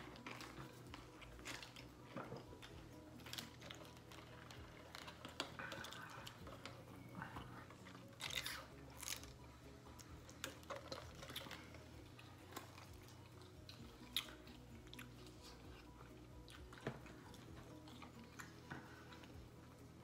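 Quiet close-up chewing and biting of crunchy fried chicken wings, with scattered crunches and mouth clicks. Around the middle comes a sip through a straw from a soda cup.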